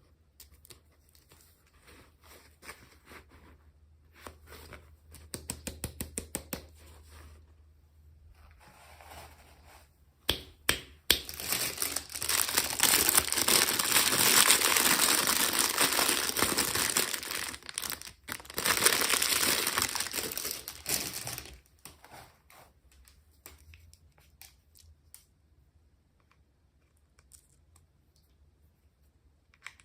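Packaging being handled, crinkled and torn open. There is a quick run of clicks about five seconds in, then about ten seconds of loud, continuous crinkling and tearing, and after that faint handling noises.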